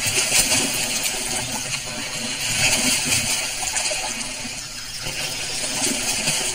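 Water splashing and sloshing as jaguars wade and swim through a shallow river, a continuous splashing with a few sharper splashes.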